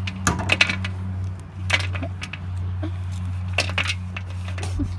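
Small hard plastic toys clicking and knocking against each other several times at uneven intervals, over a steady low hum.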